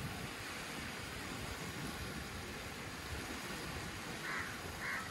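Small waves washing onto a sandy beach as a steady hiss, with two short calls near the end.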